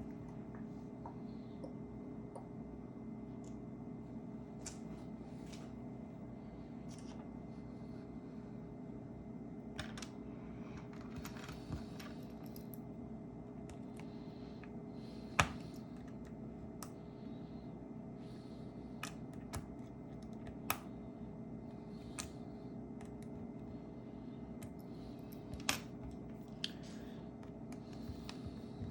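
Scattered small clicks and taps of hand repair tools working on a phone's parts, a dozen or so at uneven intervals, the sharpest about halfway through. A steady background hum runs beneath them.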